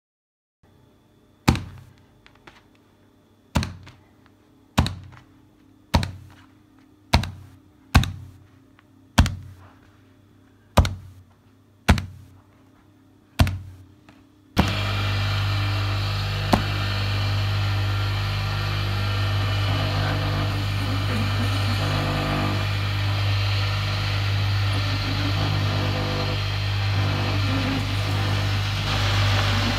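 A staple gun snapping about a dozen times, roughly once a second, as a mink pelt is stapled to a board. About halfway through, an electric fur-strip cutting machine (a let-out shredder) starts up and runs with a steady low hum.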